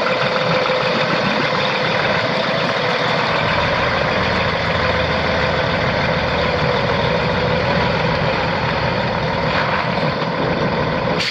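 A Cummins ISX 14.9-litre six-cylinder diesel engine in a semi truck idling steadily.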